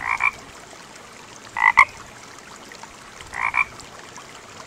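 A frog croaking three times, each call short and spaced about a second and a half apart, over a faint steady hiss.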